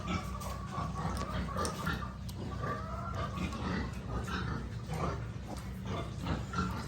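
Newborn piglets and a sow calling: short squeals and grunts in quick succession, over a steady low hum.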